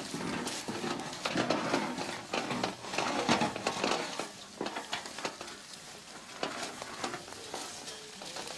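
Dry leaves and debris rustling and crackling, with scattered scrapes and clicks, busiest in the first half.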